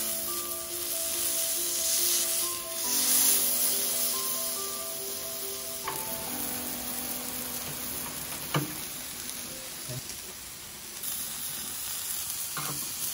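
Eye of round roast beef sizzling steadily as it sears on the hot steel cooktop of a Blackstone griddle, the reverse-sear stage that forms the crust. A few light clicks come in the second half, over soft background music with held notes.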